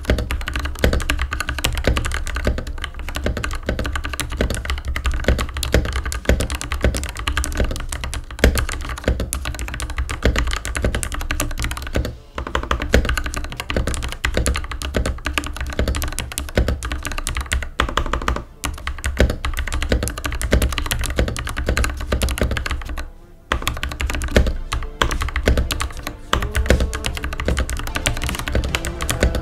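Fast, continuous typing on a stock YUNZII YZ75 mechanical keyboard with factory-lubricated Gateron G Pro red switches and double sound-absorbing foam: a dense run of keystrokes, broken by short pauses about twelve and twenty-three seconds in.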